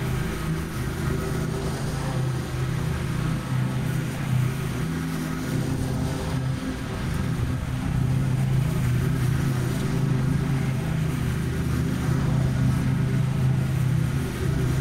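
Stand-on ride mower's engine running steadily as it mows, a constant drone with small rises and falls in level.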